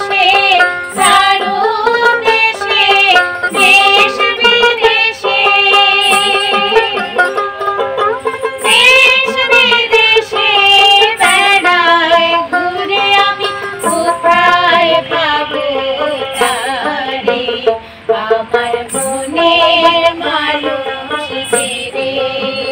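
Women singing a Bengali Baul folk song together, their voices wavering in long sung lines, accompanied by a plucked dotara and ektaras. Small hand cymbals chime about every two seconds, keeping the beat.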